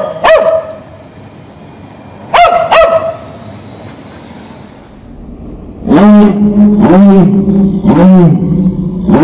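Dog barking in short bursts: one bark, two quick barks about two and a half seconds in, then a louder run of about four barks from about six seconds in over a steady low drone.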